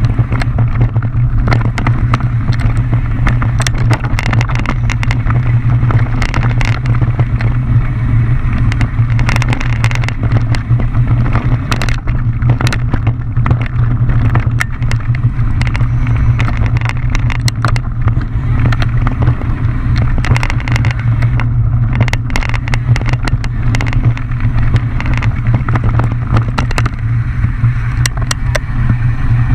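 Mountain bike descending a rough downhill trail: a steady low rumble of wind and tyres on the microphone, with frequent sharp clicks and rattles of the bike over rocks and roots.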